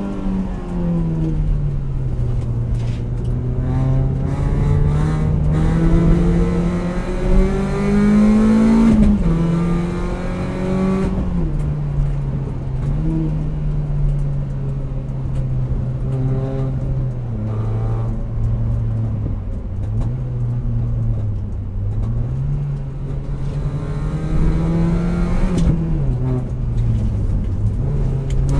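Four-cylinder petrol engine of a hard-driven hot hatch pulling and lifting off through a series of bends, its note climbing and dropping back several times, over steady road noise inside the car.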